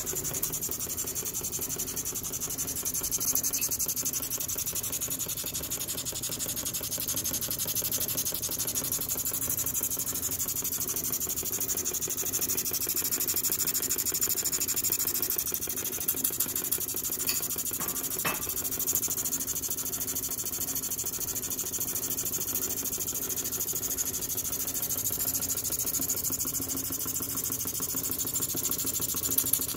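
Steady hissing from a Mamod live steam vertical-boiler model locomotive under steam, its boiler raising pressure. There are a few light clicks about halfway through.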